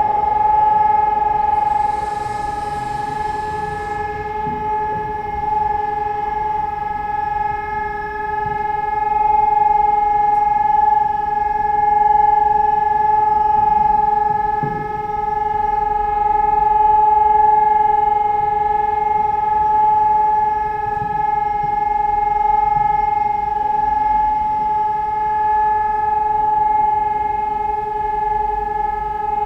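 Civil-defence siren sounding a steady tone for the test alarm. It glides up to pitch at the very start, then holds one unbroken note that swells and fades slowly in loudness.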